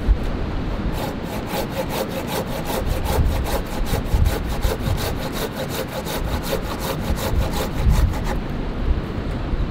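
Hand saw cutting through a tree limb in quick, even back-and-forth strokes, starting about a second in and stopping near the end.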